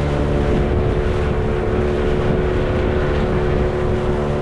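Boat engine running steadily at a constant pitch, with wind and water noise around it.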